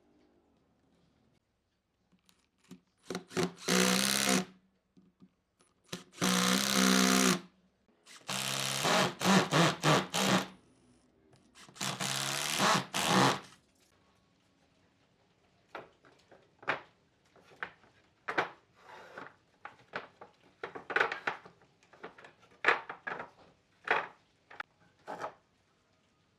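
A small power tool, most like a drill or screwdriver, runs in four short bursts of a couple of seconds each. It is followed by a series of irregular sharp knocks, like light tapping on wood.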